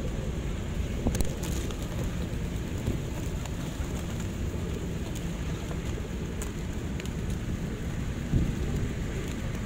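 A dense flock of feral rock pigeons feeding close to the microphone: wings fluttering and rustling and beaks pecking at the pavement, with a few sharp clicks over a steady low rumble.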